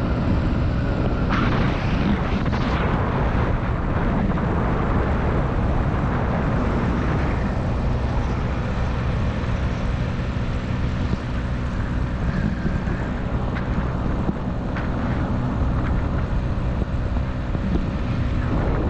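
Motorcycle engine running steadily at cruising speed, with heavy wind rumble on the microphone.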